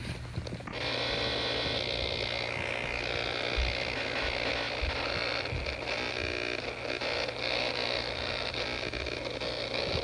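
Steady hiss and hum from an external speaker driven by an iPhone 4s, cutting in about a second in and holding even: the distorted feedback noise from a faulty audio IC chip on the phone's logic board.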